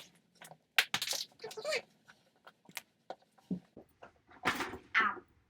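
Plastic toy packaging being unwrapped by hand: quick, irregular crinkles, rustles and snaps of wrapper and plastic shell, with the loudest tear about four and a half seconds in.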